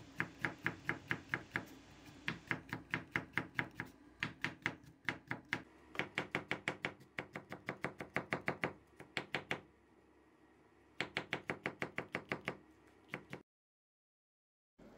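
Chef's knife slicing green peppers into thin rings on a wooden cutting board: quick, even knife taps on the board, about six a second, in runs with short pauses. The sound breaks off abruptly shortly before the end.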